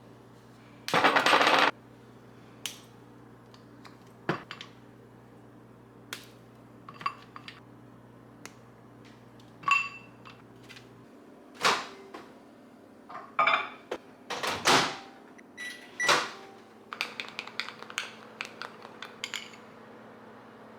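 Kitchen utensils and dishes clinking and tapping in scattered strokes, some with a brief ring, as in a metal fork or spoon against a bowl. There is a short loud rush of noise about a second in.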